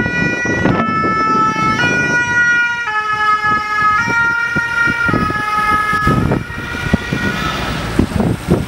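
Two-tone siren of a Renault Master VSAV fire-brigade ambulance going past, alternating between two notes about once a second. The notes drop slightly in pitch as it passes and fade out after about six seconds, over traffic noise, with a car passing close near the end.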